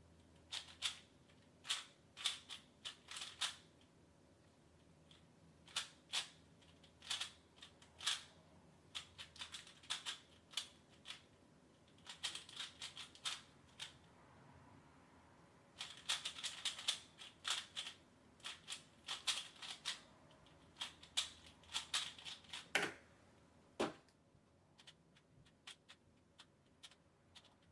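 A 3x3 Rubik's cube being turned fast, its plastic layers clicking in quick bursts with short pauses between them. Two heavier knocks come near the end, then only a few faint clicks.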